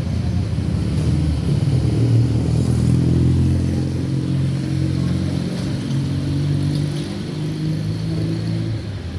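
An engine running close by: a steady low hum that swells over the first few seconds and eases a little later.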